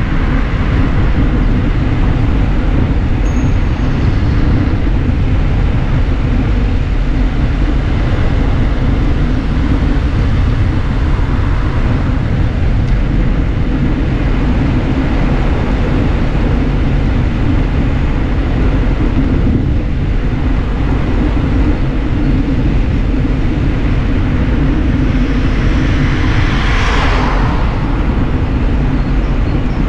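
Wind rumbling steadily on a GoPro's microphone as it rides on a moving bicycle's handlebar. Near the end a brief brighter hiss swells and fades.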